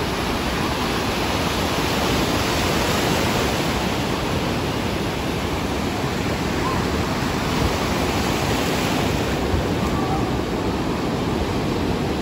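Ocean surf: waves breaking and washing in the shallows, a steady rush of water.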